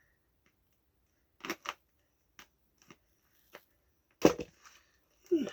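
Knife jabbing and cutting into a cardboard parcel: a string of sharp snaps and cuts, the loudest about four seconds in.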